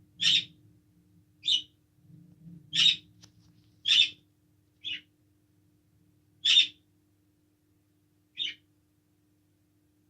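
A bird chirping: seven short chirps spaced about one to two seconds apart, over a faint steady hum.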